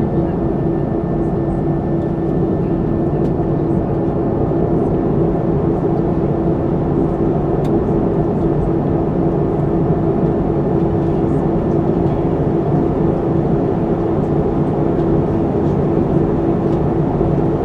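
Cabin noise inside a Boeing 737-300 with its CFM56-3 engines running steadily at low power: an even rumble with a steady hum, neither rising nor falling.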